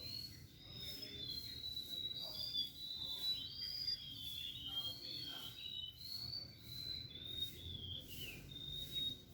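Small birds calling, a busy overlapping chatter of short, high whistled notes that rise and fall in pitch.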